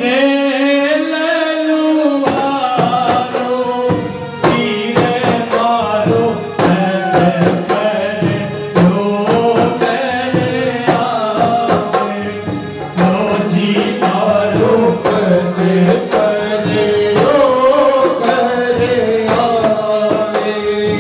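Phagan folk song: a voice sings a wavering melody over a sustained drone, and hand-drum strokes come in about two seconds in and carry on under the singing.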